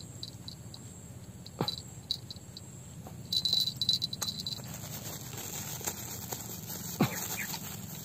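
Insects chirping in short high pulses, briefly denser about three and a half seconds in, over a few sharp clicks and rustling from hands handling fishing tackle.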